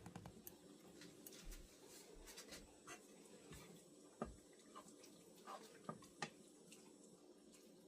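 Near silence: a few faint clicks and light knocks of kitchen items being handled, over a faint steady hum.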